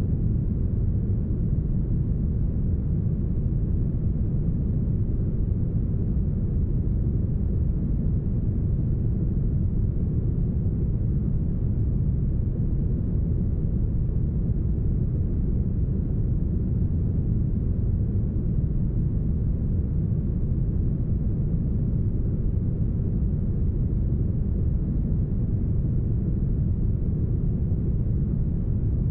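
Deep, smooth brown noise: a steady, unchanging hiss weighted heavily toward the low end, with no high frequencies.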